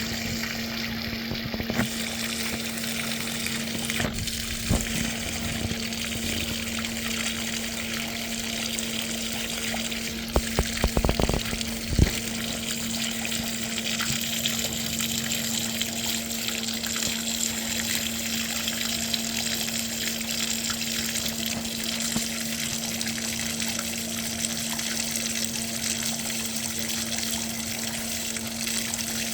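Water gushing steadily out of a sump pump discharge line, with a steady low hum beneath it. A few sharp knocks stand out, most of them about ten to twelve seconds in.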